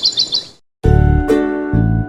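A bird's rapid run of high chirps that cuts off about half a second in. After a brief silence, a bright plucked-string tune in a children's-music style begins.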